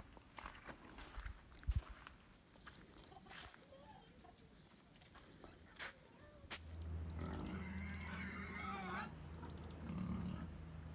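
A pig squealing for a couple of seconds, starting a little past halfway in, over a steady low hum.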